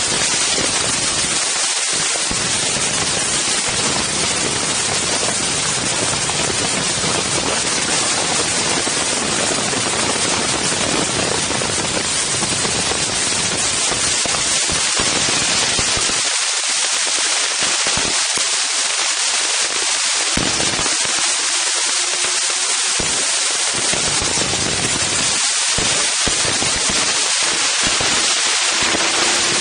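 Strong wind blowing across an Insta 360 One X camera's microphones: a loud, even hiss with a low rumble of buffeting that drops away for a few seconds at a time in the second half.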